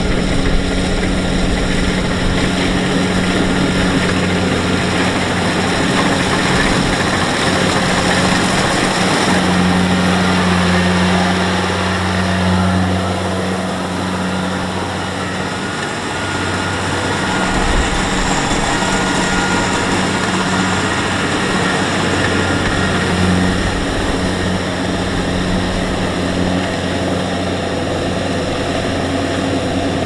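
Kubota DC-70 Plus rice combine harvester running steadily as it cuts rice: a diesel engine drone with a steady low hum, mixed with the whir of its working machinery.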